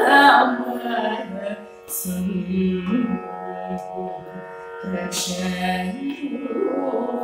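A woman singing a Carnatic kriti solo, her voice gliding between notes and holding long ones, over a steady drone.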